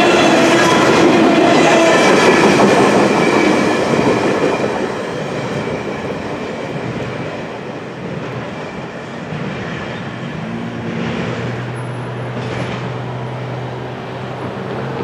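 Double-stack intermodal container cars of a freight train rolling past with clattering wheels and a steady wheel squeal. After about four seconds the last cars pass and the sound fades to a lower, receding rumble, with a faint low steady hum starting near the end.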